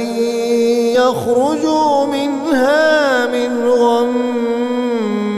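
A male Quran reciter holding one long melodic note on a drawn-out vowel, with ornamented pitch turns about one to three seconds in and a slight step down near the end.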